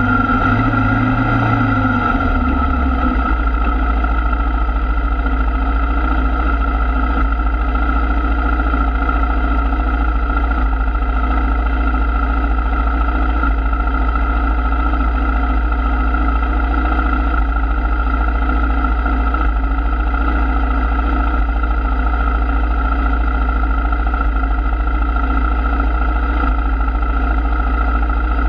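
Sport ATV engine idling steadily. In the first two to three seconds the revs drop and settle into the idle.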